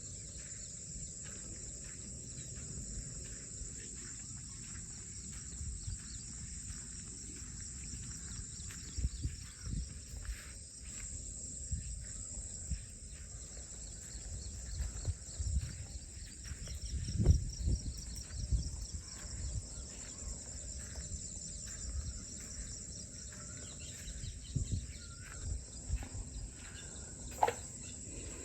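Insects, crickets or similar, chirring steadily in a high, even band. Irregular low thumps and knocks sound over it, the loudest a little past halfway and near the end.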